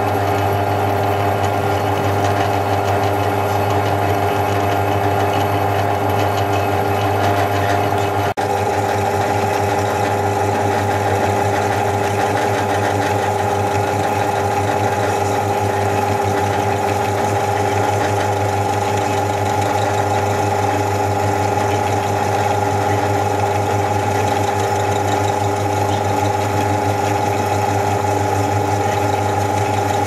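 Bench drill press motor running steadily as its twist bit drills into a metal piece held in a vise, a constant hum of several tones with one brief dip about eight seconds in.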